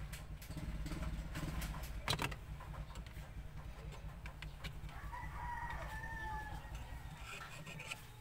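A rooster crows once about five seconds in, one drawn-out call of over a second, over a low steady rumble that fades near the end. A few sharp clicks of the metal pliers being handled, the loudest about two seconds in.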